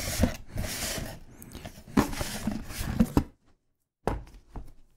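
Cardboard box and packaging being handled: rustling and scraping as a boxed action camera is lifted out of a shipping carton, with a few light knocks. The sound drops out completely for a moment a little after three seconds.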